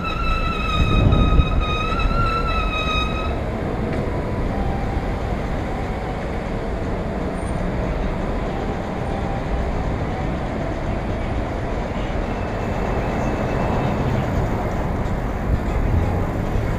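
Steady rush of wind on a bicycle-mounted action camera and of traffic while riding, with a high squeal with overtones that wavers slightly and stops about three seconds in.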